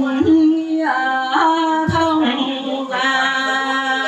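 Vietnamese funeral music: a single melodic line of long held notes that step and slide between pitches, with a sharp percussive hit about two seconds in.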